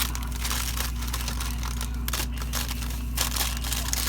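Irregular crinkling and rustling, with a steady low hum underneath.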